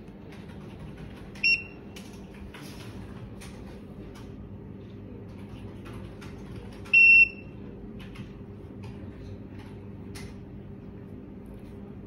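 Electronic smart lock beeping twice: a short high-pitched beep about a second and a half in, and a longer one about seven seconds in. Faint tapping clicks and a low steady hum underneath.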